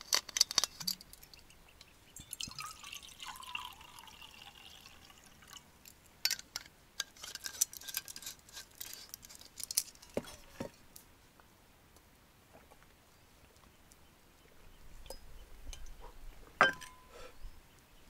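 Water being poured and dripping, with scattered clinks and knocks.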